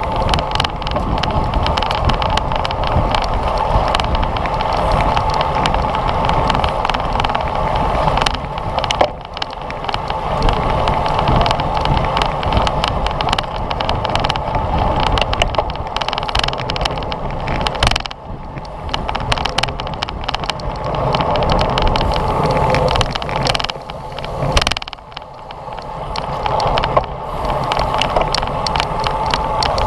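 Steady rush of wind and road noise on a bicycle-mounted GoPro while riding at race speed in a bunch. The noise eases briefly about three times.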